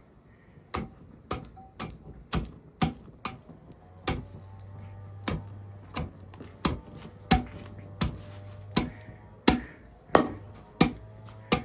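Repeated hard knocks, about two a second, of a stick beating the burning remains of a microwaved plastic alarm clock to put out the flames. A steady low hum joins about four seconds in.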